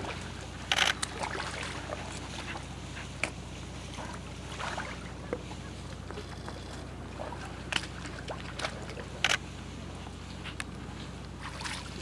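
Water lapping and sloshing against a small boat's hull, with a few sharp knocks and clicks, over a steady low hum.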